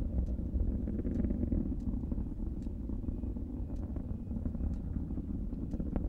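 Space Shuttle Columbia's solid rocket boosters and main engines during ascent, heard from a Kennedy Space Center viewing site several miles away: a steady, deep rumble with faint sharp crackles now and then.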